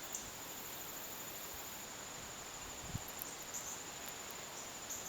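Insects trilling steadily at a high pitch over a faint hiss of outdoor air, with one soft low thump about three seconds in.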